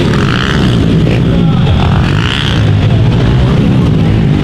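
Several pit bike engines revving hard as the bikes race round a dirt track, with the pitch rising and falling as the riders work the throttle.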